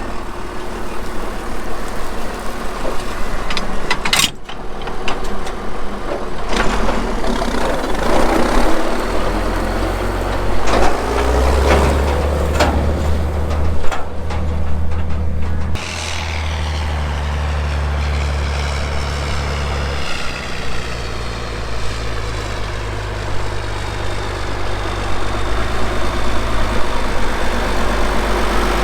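Farm tractor engine running, its speed rising for several seconds about a third of the way in and settling back lower later. A sharp knock about four seconds in.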